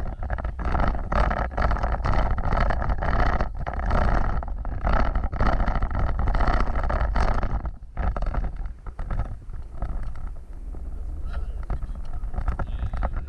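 Off-road vehicle driving over rough ground: a steady low rumble with many knocks and rattles, easing to a quieter, smoother run about eight seconds in.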